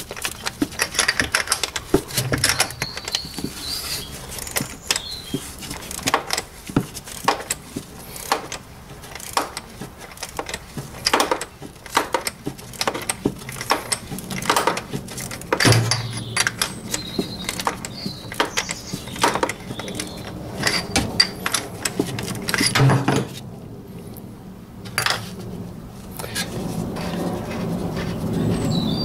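Ratchet and 36 mm socket clicking and clattering on the plastic oil filter housing cap of a 2004 Mini Cooper as the cap is undone, many sharp irregular metallic clicks. Near the end the clicks give way to a duller rubbing and rustling.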